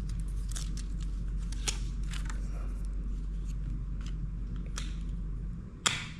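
Scattered light clicks and crackles of a plastic protector and its packaging being handled and fitted, over a steady low hum. A sharper click comes near the end.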